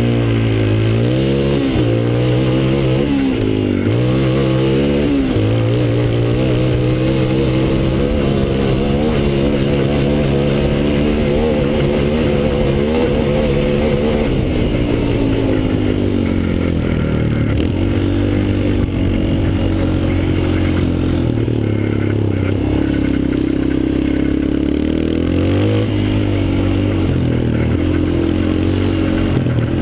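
Yamaha Raptor 250 quad's single-cylinder four-stroke engine running under way, its revs rising and falling with the throttle, then settling lower about halfway through.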